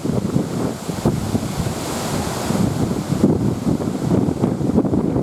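Strong wind buffeting the microphone in irregular gusts, over the steady rush of wind-driven lake waves breaking on the shore.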